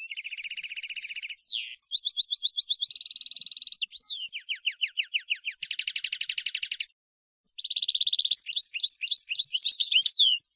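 European goldfinch (chardonneret) singing a long song of fast trills, each block a different rapidly repeated note, with a run of quick falling whistles in the middle. There is a short break about seven seconds in, then a jumbled twittering phrase that ends just before the close.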